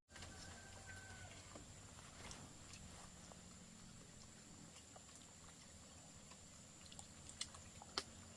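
A small pig grunting faintly and steadily, with two sharp clicks near the end.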